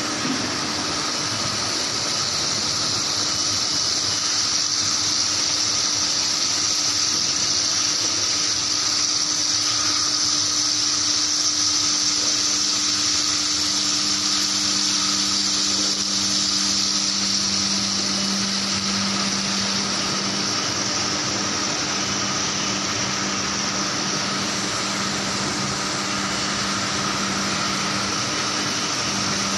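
Medium-frequency induction quenching equipment running: a loud, steady high hiss with faint steady tones over it. A low hum joins about twelve seconds in.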